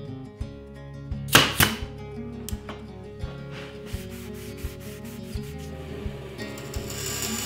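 Background music with a steady beat. About a second and a half in come two loud, short rubbing strokes on wood. Near the end a band saw begins cutting, trimming the spline ends of a wooden frame.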